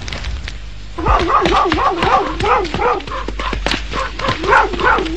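Dogs yelping and whining in a steady run of calls starting about a second in, their pitch rising and falling about three times a second, with sharp clicks scattered through.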